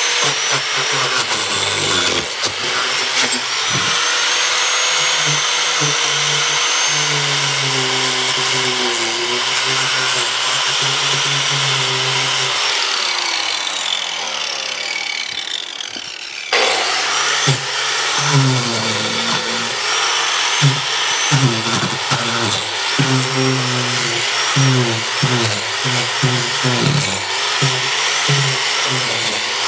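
Hand-held electric power tool cutting into rotted log wood, its motor whine dipping and recovering as it bites. About halfway through it winds down, falling in pitch, and is started again abruptly.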